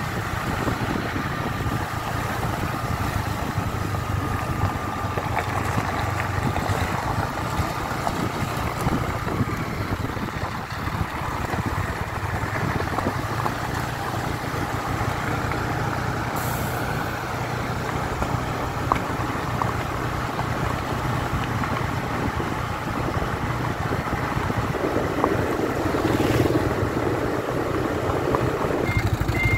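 Steady engine running with road rumble from travelling behind a small Hoa Mai dump truck loaded with sand, growing a little louder near the end.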